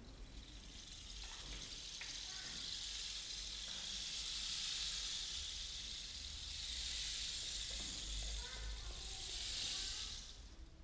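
Rainstick being tilted, its filling trickling down inside with a steady rushing hiss like rain or a pouring stream. The sound swells and eases in waves and stops abruptly near the end.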